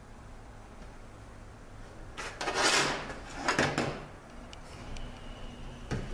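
A Mitsubishi V5A51 automatic transmission's aluminium case scraping and clunking against a metal workbench as it is turned over by hand. There are two short noisy bursts, about two seconds in and again a second later, and another begins near the end.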